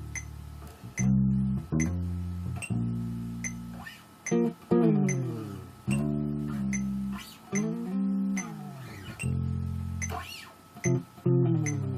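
Bass guitar playing held low notes broken by pitch-sliding sound effects: several falling and arching swoops. A light click ticks steadily underneath, about every two-thirds of a second.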